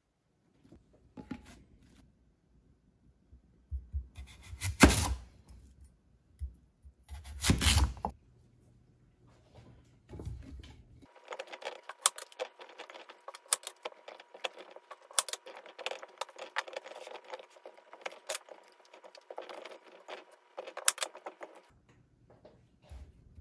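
Vegetables and radish chunks being packed into an earthenware crock by hand: two heavy knocks a few seconds in, then a longer stretch of light clinks and taps as pieces touch the pottery and each other.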